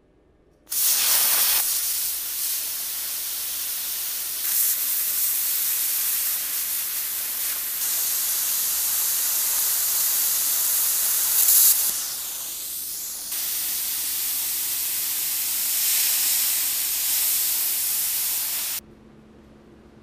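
Handheld plasma cutter cutting 3/16-inch steel plate: a loud, steady hiss starts about a second in, dips briefly a little after halfway, and cuts off shortly before the end, when the arc stops, leaving a low hum.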